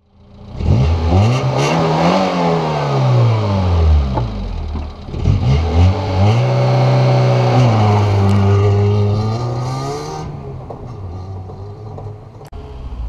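Peugeot 106 four-cylinder engine revving: the revs climb and fall back within the first few seconds, then climb again and hold fairly steady as the car pulls away. The sound fades after about ten seconds.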